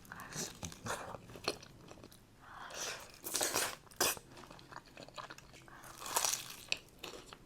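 Close-miked chewing of a mouthful of food: irregular bursts of crunching and wet mouth clicks, with short pauses between.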